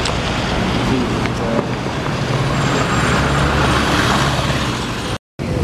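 Road traffic noise: vehicles running on a road, with a steady low rumble. It cuts off abruptly near the end.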